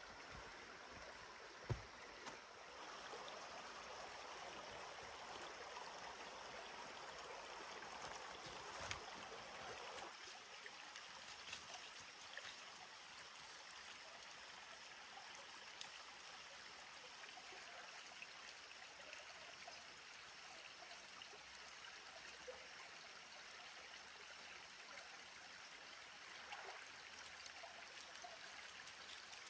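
Shallow rocky creek trickling over stones, a faint, steady rush of running water, with one sharp tap about two seconds in.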